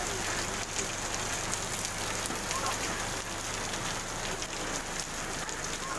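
Steady rain falling on a wet paved street, a continuous even hiss of drops on the road and puddles.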